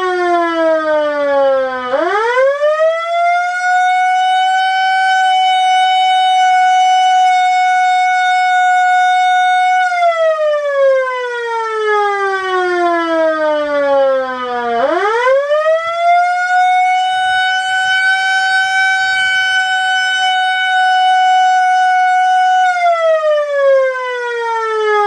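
Outdoor tornado warning siren sounding a wail. Its single tone climbs quickly, holds high and steady for about eight seconds, then slides down over several seconds. This happens twice, and it is sliding down again near the end.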